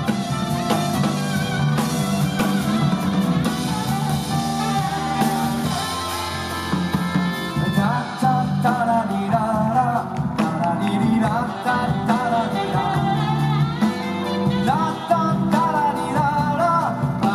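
Live band music with drum kit and guitar, and a melody line that slides and bends in pitch from about eight seconds in.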